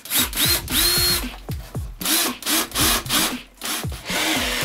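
Cordless drill boring into a wooden stud, its trigger squeezed in a series of short bursts, each a rising whine as the motor spins up. About four seconds in it is held for a steady run.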